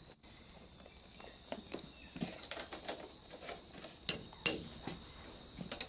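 Thin bamboo strips of a fish trap clicking and rattling against each other as they are handled and bent into shape, irregular light ticks over a faint steady hiss.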